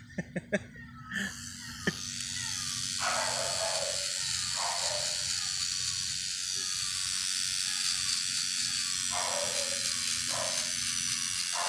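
Electric hair clippers running steadily as the barber trims around the head, coming in after a few short clicks near the start.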